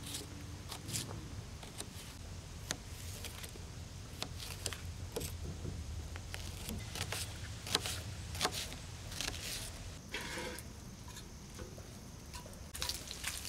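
A kitchen knife slicing potatoes and red bell pepper on a plastic plate: irregular sharp taps and clicks as the blade cuts through and strikes the plate.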